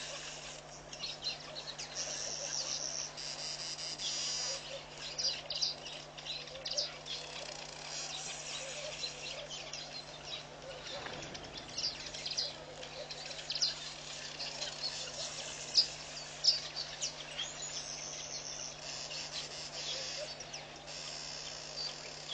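Natural pond ambience: many short, high bird chirps and peeps throughout, with several stretches of high insect buzzing. A steady low hum runs underneath.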